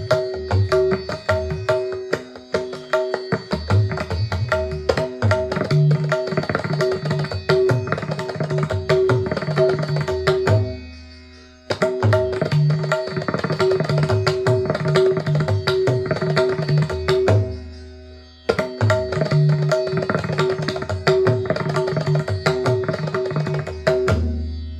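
Indian classical instrumental music played back through a Tribit Stormbox Pro portable Bluetooth speaker: fast tabla strokes over a steady held drone. Twice the phrase dies away and the playing starts again sharply.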